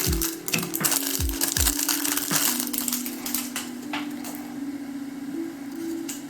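Packaging being handled and unwrapped: dense crinkling and crackling with a few clatters, thinning out after about four seconds, over background music with held notes.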